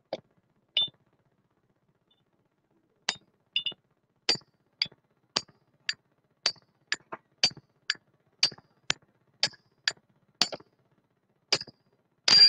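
A hammer knocking a metal lugless joining shackle to separate its upper and lower halves. There are sharp clanks: two near the start, a pause, then a steady run of about two strikes a second. The last strike near the end is louder and rings briefly.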